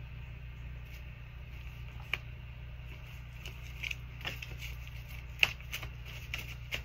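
A deck of tarot cards being shuffled by hand: light clicks and flicks of the cards, sparse at first and growing busier from about halfway on, over a steady low hum.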